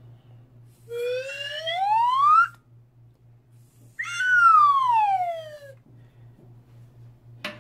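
Slide-whistle-style comic sound effect: a pitched tone glides up for about a second and a half, then after a short pause glides back down.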